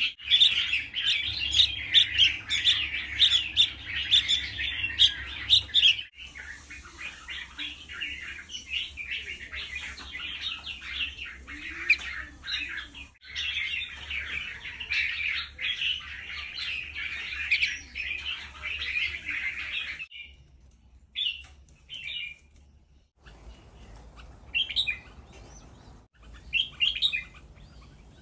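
Red-whiskered bulbuls chirping: a dense run of rapid chirps that breaks off abruptly a few times, then a few separate short calls with gaps between them near the end.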